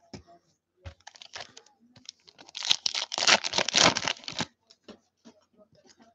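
Foil wrapper of a football trading-card pack being torn open and crinkled by hand. It is loudest for about two seconds in the middle, with scattered light clicks before and after as the cards are handled.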